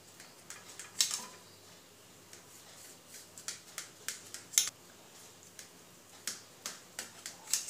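Knife blade clicking and tapping against a stainless steel plate while cutting a set cake of steamed chhena into pieces: a scatter of sharp ticks, the loudest about one second in and again a little past four and a half seconds.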